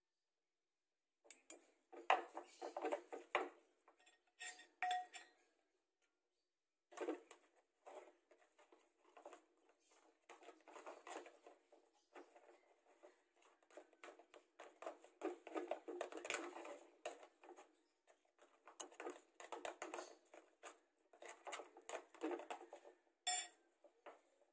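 Dishes and kitchen utensils clinking and knocking on a counter in irregular clusters of short clicks, with a couple of brief pauses, while food is put together by hand.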